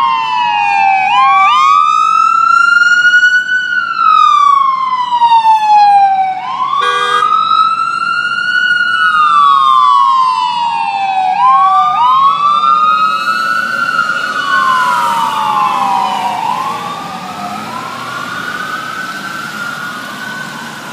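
Ambulance siren on a slow wail, rising and falling about every five seconds, with a short horn blast about seven seconds in. Road noise from the passing vehicle builds in the second half as the siren fades.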